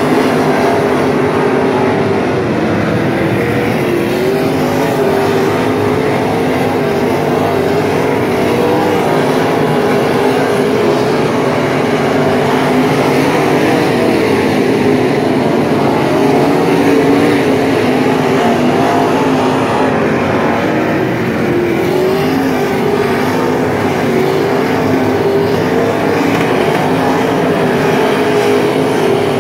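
Dirt-track late model race cars' V8 engines running together at low, uneven revs as the field circles slowly under caution, the pitch wavering up and down without a full-throttle pass.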